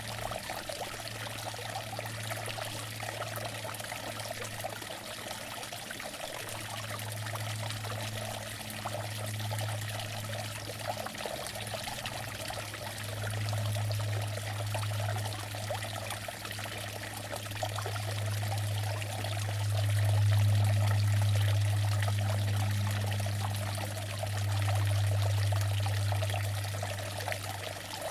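Outdoor water fountain running: steady splashing and trickling of falling water. Under it a low hum swells and fades, loudest about two-thirds of the way in.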